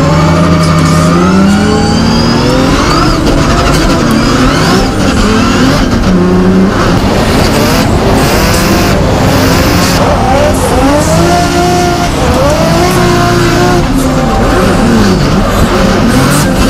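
Scion FR-S drift car's engine revving up and down over and over as the throttle is worked through a drift, heard from inside the cockpit.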